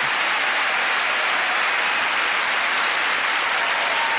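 Theatre audience applauding, steady and sustained.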